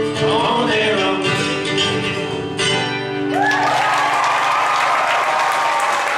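Live acoustic folk band with acoustic guitar, mandolin and singing playing the final bars of a song, which ends about three seconds in. The audience then breaks into applause and cheering.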